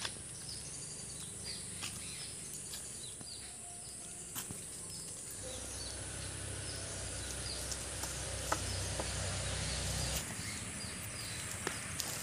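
Outdoor rural ambience: a steady high insect drone with short falling chirps repeated about twice a second, and a low rumble from about five to ten seconds in.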